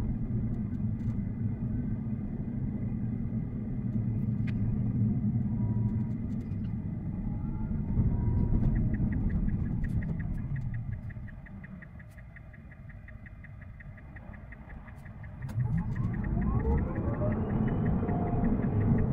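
Low road and tyre rumble inside the cabin of an electric Tesla Cybertruck on the move, sped up. It eases off from about eleven to fifteen seconds in, then builds again as the truck picks up speed. A rapid, even ticking runs over it in parts.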